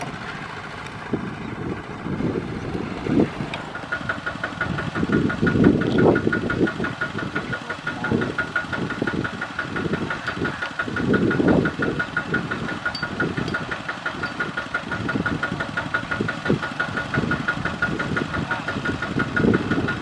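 Diesel engine running with an uneven rumble for the first few seconds. From about four seconds in, a two-wheel walking tractor's single-cylinder diesel idles with a fast, even knock.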